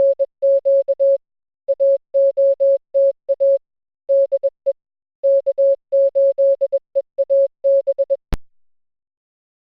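Morse code: a single clean, steady mid-pitched tone keyed on and off in short dots and longer dashes, with gaps between letters. It stops just after eight seconds and is followed by one sharp click.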